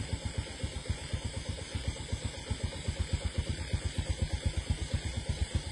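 An engine idling, with a rapid, even low thumping that holds steady throughout.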